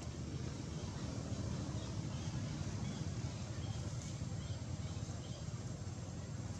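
Steady low rumble of outdoor background noise, with a few faint, scattered high chirps.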